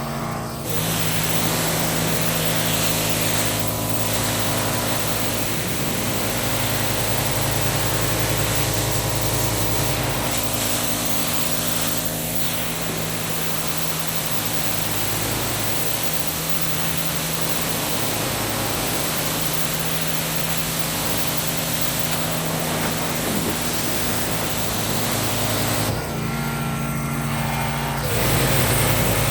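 Pressure washer running: a steady engine hum under the dense hiss of the high-pressure water spray. The spray drops away for a couple of seconds near the end while the engine keeps running, then starts again.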